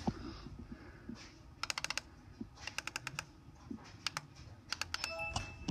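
Laptop keyboard keys tapped in quick bursts of several faint clicks, with pauses between the bursts. A brief electronic tone sounds near the end.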